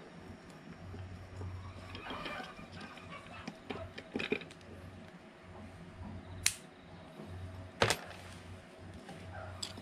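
Faint clinks and taps of the metal gear case of a Karumo GC-K300 mower being handled and pulled apart by hand during disassembly, with two sharper clicks in the second half.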